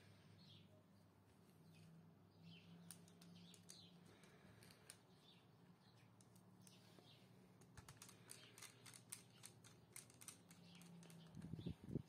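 Faint clicks and taps of wires and a screwdriver being handled at the screw terminals of miniature circuit breakers, most of them from about eight seconds in, then a low knock near the end. Faint bird chirps in the background.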